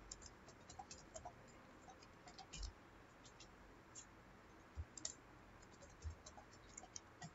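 Faint computer keyboard keystrokes: scattered, irregular clicks of someone typing, over near-silent room tone.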